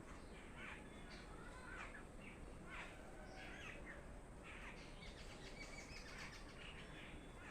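Garden birds chirping: many short, faint calls one after another, over a steady low background noise.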